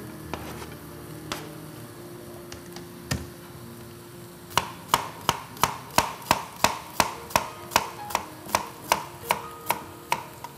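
A chef's knife slices through an onion on a cutting board. The evenly spaced knocks of the blade hitting the board start about four and a half seconds in and come about three a second.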